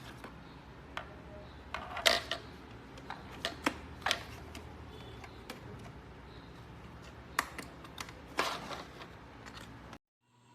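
A dozen or so scattered sharp clicks and knocks, like hard objects being handled, over a low steady hum. The sound cuts off abruptly near the end.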